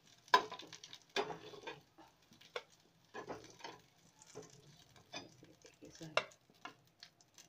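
A metal spoon scraping and knocking in a pan where gram-flour dumplings shallow-fry in oil, with a faint sizzle under it. The knocks and scrapes come irregularly, one sharper knock a little after six seconds in.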